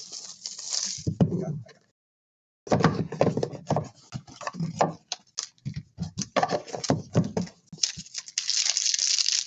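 Trading card boxes, packs and wrappers being handled and opened on a table: a busy run of taps, clicks and crinkling, with a brief total dropout about two seconds in.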